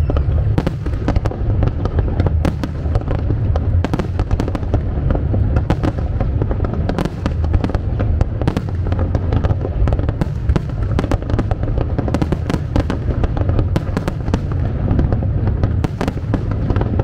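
Aerial fireworks display: many sharp bangs and crackles in quick, irregular succession over a continuous low rumble.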